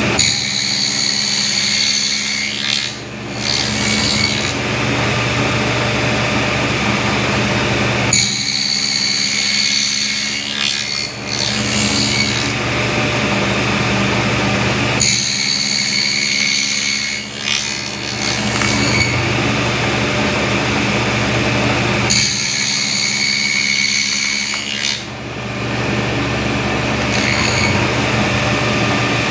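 Table saw with a wobble dado blade running steadily while it nibbles out a half-lap joint in a 2x6 board. It makes four cutting passes, each about four seconds long and about seven seconds apart; each pass adds a harsh, high whine of the blade in the wood over the motor's hum.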